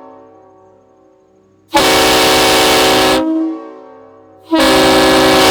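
Homemade PVC five-chime S5T train horn blown in two loud blasts, the first about a second and a half long and the second starting near the end. Each blast is a chord of several steady notes over a rush of air, and the notes ring down briefly when the air cuts off.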